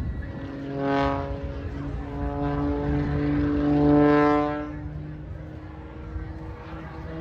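Propeller aircraft engine droning overhead. It swells loudest about a second in and again around four seconds in, as the plane passes.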